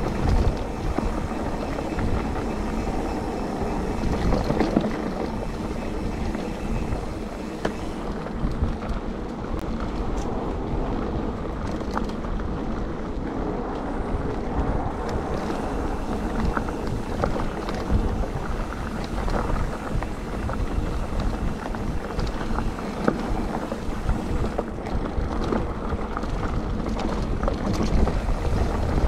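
Calibre Triple B mountain bike ridden along a dry dirt woodland trail: tyres rumbling over the ground and the bike rattling in many small clicks over bumps, with wind buffeting the microphone.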